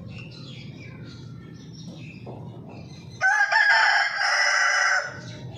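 A rooster crowing once, a single loud cock-a-doodle-doo of just under two seconds, starting about three seconds in.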